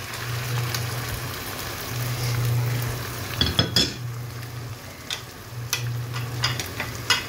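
Chicken mince sizzling in a pot of hot oil with browned onions and ginger-garlic paste, just added to the pan. A few sharp clinks of kitchenware against the pot come about halfway through and again a little later, over a low hum that comes and goes.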